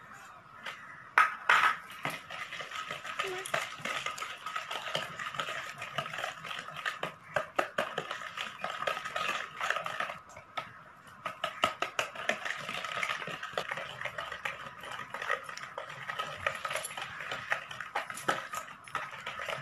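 Wire balloon whisk beating melted butter, curd and powdered sugar in a plastic bowl: a quick, continuous rattle and clicking of the wires against the bowl, with a few louder knocks about a second and a half in and a brief pause near the middle.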